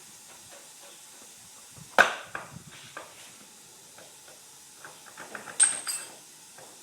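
A rear motorcycle wheel being pulled out of the swingarm after its chain is slipped off the sprocket. There is a sharp metallic clunk about two seconds in, then a few smaller knocks, and a rattling clatter with a brief metallic ring near the end.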